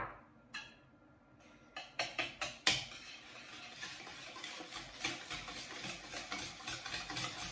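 Hand whisk beating eggs and sugar in a bowl: rapid, even clicking of the wires against the bowl, starting with a few louder strikes about two seconds in.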